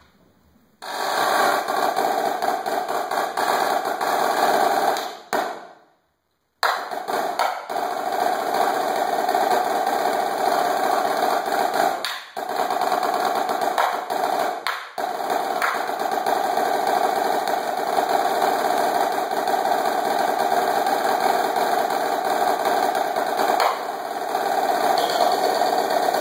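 Marching snare drum solo: fast, dense rolls and rudiments played with sticks on the snare. The playing stops short about six seconds in and breaks off for a moment twice more, near twelve and fifteen seconds.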